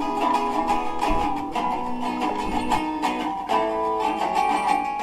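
Background music played on guitar, with plucked and strummed chords.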